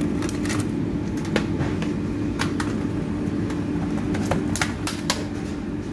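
Steady low hum of kitchen equipment, with about ten light clicks and taps scattered through it as long chopsticks and a plastic herb container are handled.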